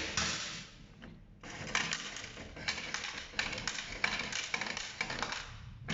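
Vending machine's coin mechanism taking a £2 coin and paying out change: a run of sharp clicks and clinks as coins drop into the return tray, starting about a second and a half in.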